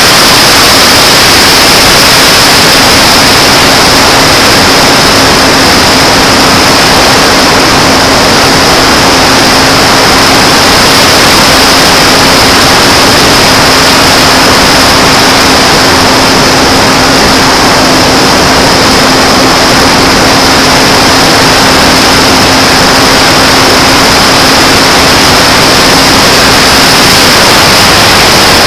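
Onboard audio from a J-Power Sky Surfer RC plane in flight: loud, steady wind rush over the small camera's microphone, with the electric motor and APC 5.5x4E propeller humming at one constant pitch and a thin high whine above it. The propeller hum cuts out near the end while the wind noise goes on.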